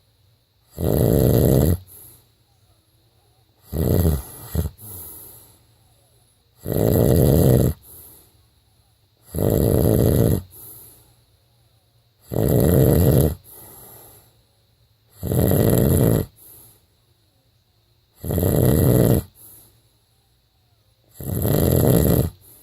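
A man snoring in regular, loud snores, about eight of them, one roughly every three seconds and each about a second long. The second snore breaks up into a few short pieces.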